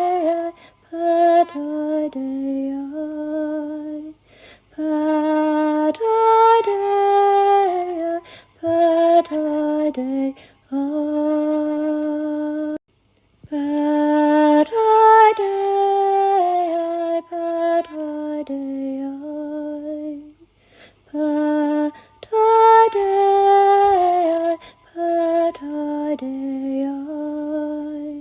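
A woman's solo voice singing slow, held, lullaby-like phrases without accompaniment, each phrase broken off by a short pause for breath.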